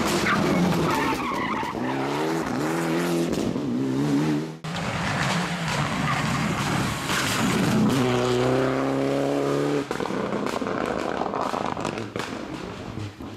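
Rally cars' engines revving hard through tarmac corners, in three cuts. A Mitsubishi Lancer Evolution X's turbocharged four-cylinder rises and drops in pitch through gear changes. Then a Citroën DS3 accelerates with a steadily climbing engine note. About ten seconds in, a harsher engine sound of a car approaching takes over, with scattered clicks.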